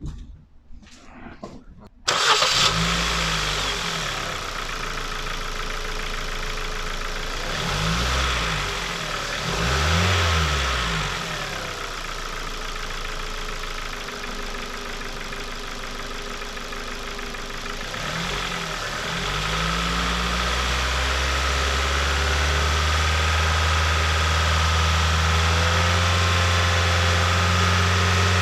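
A Ford Focus mk2 1.6 petrol engine, already warm, is started about two seconds in and settles to an idle. It is revved briefly a few times, then held at a higher, steady speed from about twenty seconds in. This is a check of whether the valve clatter it makes when cold persists once warm.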